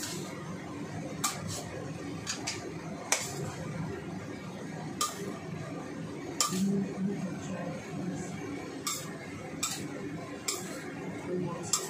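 Metal ladle and spatula clanking and scraping against a stainless-steel wok while noodles are stir-fried, with irregular sharp clinks about every second.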